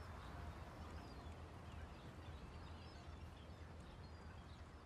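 Faint outdoor ambience: a low steady rumble with scattered short, high bird calls.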